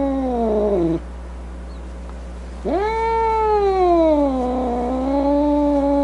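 A cat yowling in long drawn-out calls: one call ends about a second in, and after a short pause another begins with a sharp rise in pitch, then slowly falls and holds steady.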